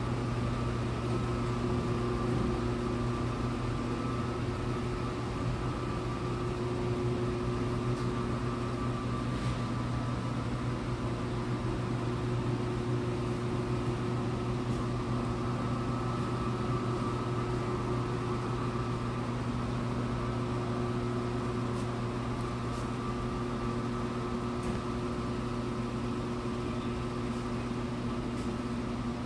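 Steady mechanical hum of running machinery, several constant tones held without change, with a few faint ticks in the second half.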